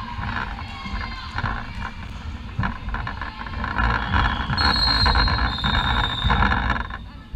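Reverberant sports-hall noise during an indoor volleyball rally: a steady rumble of players and spectators, with a high squeaking tone for a couple of seconds about halfway through.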